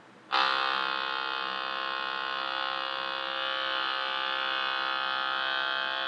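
Added comic sound effect: a loud, steady, alarm-like tone made of many pitches. It starts abruptly about a third of a second in and holds unchanged.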